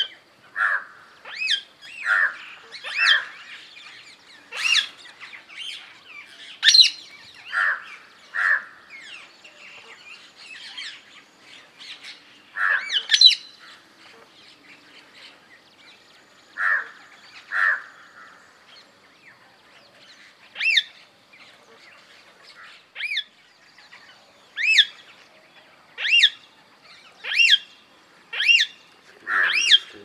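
Indian ring-necked parakeet calling: a string of short calls, irregular at first, then settling into a steadier series of about one call a second in the last third.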